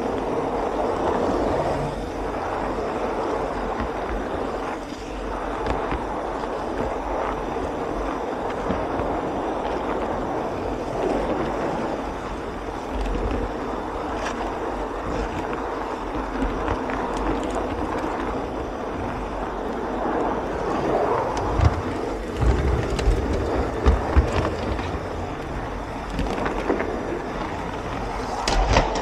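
Garden-scale (LGB) model train's wheels rolling along the track, a steady rumble with scattered clicks over rail joints, close up from the camera riding on the train. A run of louder knocks comes about three-quarters of the way through.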